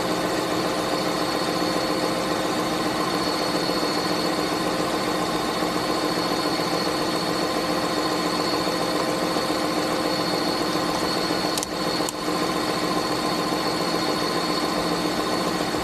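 2001 Lincoln Town Car's 4.6-litre modular V8 idling steadily with a steady whine over it, running just after an intake manifold replacement. There are two brief clicks about twelve seconds in.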